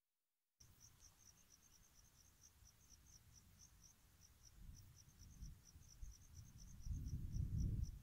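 Cricket chirping steadily in quick, short chirps, about six a second, starting just after the beginning. Beneath it a low rumble builds through the second half and is loudest near the end.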